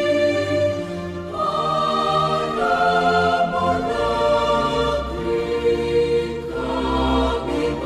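Background music: a choir singing slow, held chords that change every second or so.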